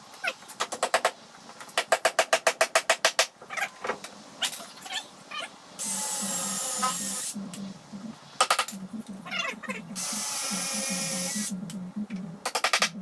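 Cordless drill boring holes through wood for carriage bolts, in two loud runs of a couple of seconds each, after bursts of rapid clicking.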